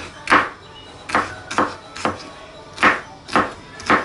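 Kitchen knife chopping red bell pepper on a wooden cutting board: about seven sharp knocks of the blade striking the board, irregularly spaced roughly half a second apart.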